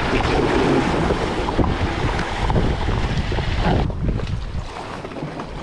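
Surf washing and foaming over shoreline rocks, with wind buffeting the microphone in a heavy low rumble.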